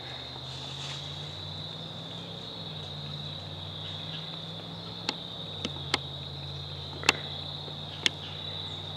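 Crickets trilling steadily in one high, unbroken tone, over a low steady drone. Five sharp clicks or snaps come in the second half, the loudest about seven seconds in.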